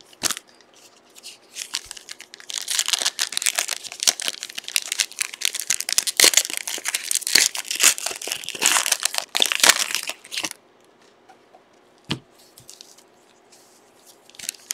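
Trading card pack wrappers being torn open and crinkled, a dense crackling and ripping that goes on for about eight seconds and then stops. A single sharp tap follows a little later.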